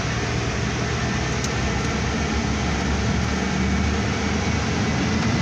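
2008 Mercedes-Benz Actros truck heard from inside its cab while driving: a steady low engine drone under road and wind rush. The engine hum grows stronger for a second or so about three and a half seconds in.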